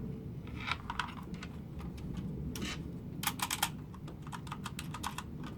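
Keys of a retro 61-key mechanical keyboard being pressed: a few scattered clacks, then a quick run of about six keystrokes a little after three seconds in.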